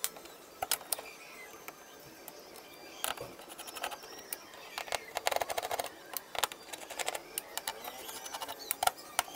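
Screwdriver unscrewing the mounting screws of an LCD TV's power supply board: scattered sharp clicks and taps, thickest about five seconds in and again near the end.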